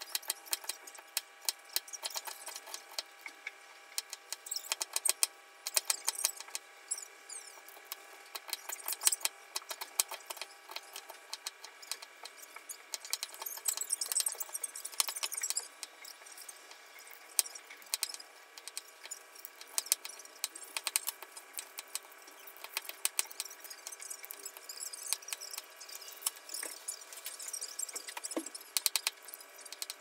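Light clicking and clattering of small hard objects being handled, coming thick and fast in places, over a steady faint hum.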